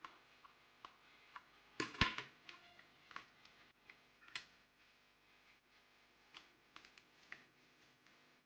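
Scattered light clicks and knocks of the plastic parts of a battery-powered toy sword being handled as it is taken apart, the loudest about two seconds in.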